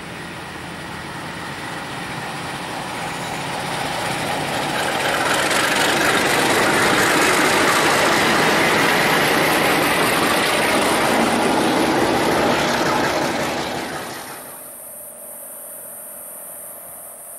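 MLW MX-627 diesel-electric locomotive approaching and passing close by: its diesel engine and wheels on the rails grow louder, stay loud for several seconds, then fade. About two-thirds of the way through the sound cuts off abruptly, leaving a quieter background with a steady high-pitched hiss.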